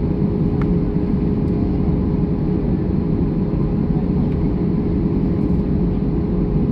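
Airbus A320 cabin noise: a steady low roar of the engines and air rushing past the fuselage, with a steady hum over it and a couple of faint ticks.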